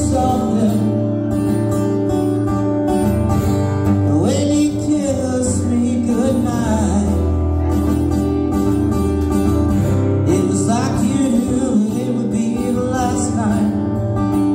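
Live acoustic music: two acoustic guitars strummed together, with a man singing into a microphone.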